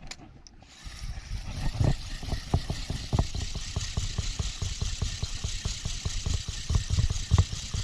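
Fishing boat's engine running with a steady rumble and hiss that comes up about a second in, overlaid by many irregular low knocks.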